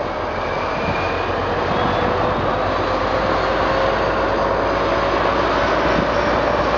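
Diesel shunting locomotive's engine working under load as it hauls a train of car-carrier wagons. It is a steady drone whose pitch drifts slowly up and then down, and it grows louder over the first couple of seconds.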